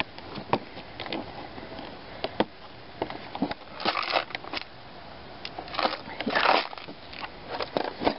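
Plastic tool kit case being handled and opened: scattered clicks and light plastic rattles from the case and the tools in it, with a few short rustles about four seconds in and again after six seconds.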